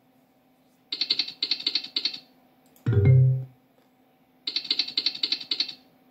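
Funky Chicken online slot machine's game sounds: a rattle of rapid electronic ticks as the reels spin and land, a short low tone about three seconds in as the next spin starts, then another burst of ticks.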